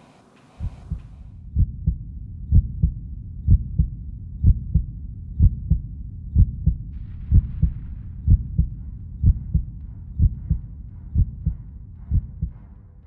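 Heartbeat sound effect: a low double thump about once a second over a low hum, starting about half a second in.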